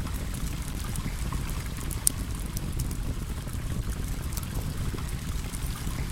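Steady rush of flowing water with a low rumble, dotted with sharp crackles and pops of a campfire, one louder pop about two seconds in.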